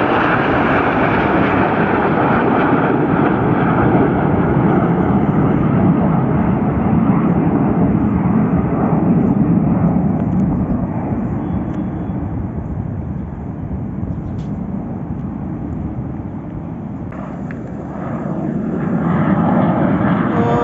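Jet engines of a formation of BAE Hawk display jets passing overhead: a loud, steady rushing that eases off past the middle and swells again near the end as more jets come through.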